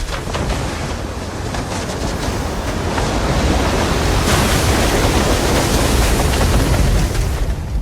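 Avalanche sound effect: a continuous deep rumble under a rushing hiss of sliding snow, swelling a little about four seconds in.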